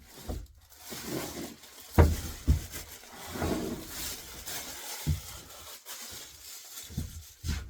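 A heavy bench grinder and its packaging being handled: rustling with several dull knocks as it is lifted and set down, the loudest about two seconds in.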